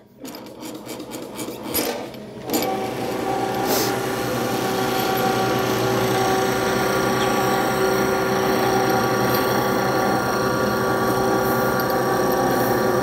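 Motorised roll bender running under load as a stainless steel handrail tube is fed through its rollers, a steady machine hum with the rasp of the tube rubbing in the rolls. For the first couple of seconds the sound is uneven, then from about two and a half seconds in it runs steadily.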